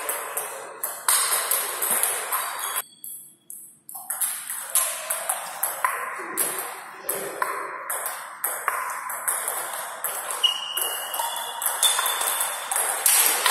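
Table tennis rally: the plastic ball clicks in quick succession off the rackets and the table, each hit with a short high ring. Play stops for a near-silent second about three seconds in, then the clicking picks up again.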